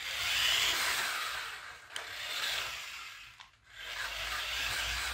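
Small electric drive motor and gears of a toy-grade New Bright RC car whirring as it drives over a wooden floor, in three spurts with a short stop about three and a half seconds in. It runs on 5 volts from a USB power bank and is a little short of power.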